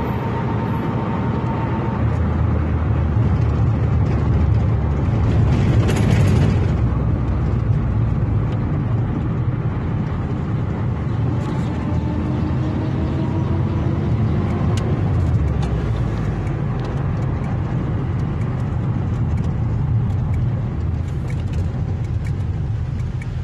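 Car cabin noise while driving: a steady low rumble of engine and tyres on the road, with a brief louder rush about six seconds in.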